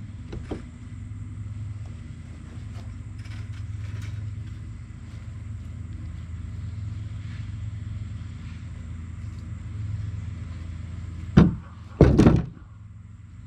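A vehicle engine running steadily at a low pitch, with two loud bangs near the end.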